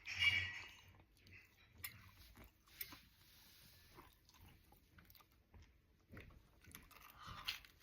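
A person chewing and biting food close to the microphone, with irregular crunchy bites, the loudest just after the start.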